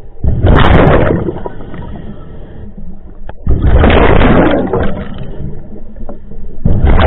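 Scuba regulator breathing underwater: three loud gushes of exhaled bubbles about three seconds apart, with a quieter hiss of inhalation through the regulator between them.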